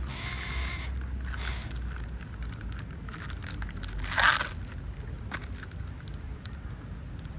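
A heron's bill snapping up food from the grass right by the microphone: one short, sharp crunch about four seconds in, the loudest sound, after a brief rustle near the start.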